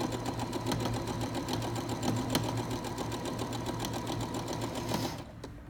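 Brother Innov-is 40e electric sewing machine stitching a seam through fabric: a steady motor hum with rapid, even needle ticking, stopping a little over five seconds in.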